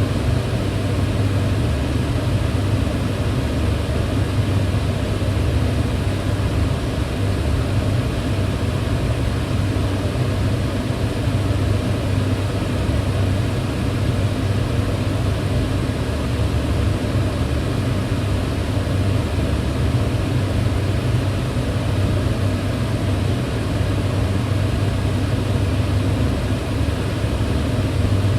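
Kitchen range hood fan running at a steady pitch: an even rushing of air over a low hum, with no change in level.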